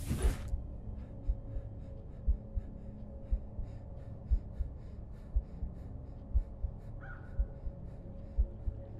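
Heartbeat sound effect: low, steady thumps at about one beat a second. A short rush of noise sounds at the very start.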